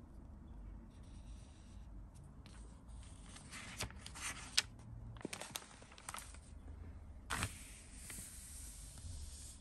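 Pages of an old paper watch instruction booklet being handled and turned: rustling in short bursts with a few sharp paper crackles.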